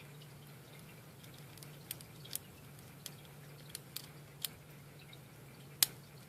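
Scattered light clicks of a lock pick and tension wrench working the spool pins of an Abus 55/60 brass padlock, with one sharper click near the end as the lock drops into a false set.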